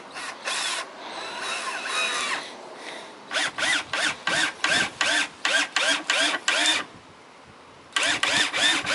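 Cordless drill driving a screw through a 2x4 post into a wooden pallet. The motor runs for about two and a half seconds, then comes in rapid short trigger bursts, each winding up and down in pitch, with a brief pause near the end before the bursts start again.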